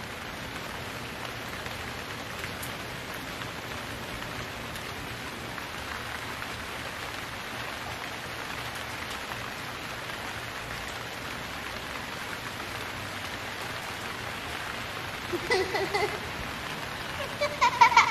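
Steady rain falling, an even hiss. A few brief pitched sounds come in near the end.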